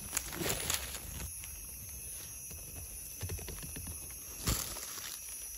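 Dry forest leaf litter rustling and crackling as hands and a small knife dig around a wild mushroom on the forest floor. There are irregular short crackles, with the sharpest about four and a half seconds in.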